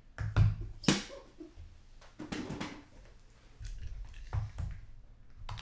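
Trading-card pack being handled and opened: a few sharp clicks and taps with brief rustling of packaging and cards.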